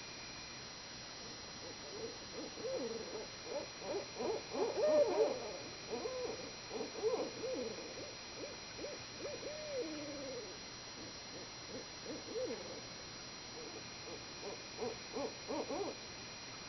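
Several owls calling back and forth: a jumble of short hoots and wavering, bending calls, thickest for the first several seconds and again near the end.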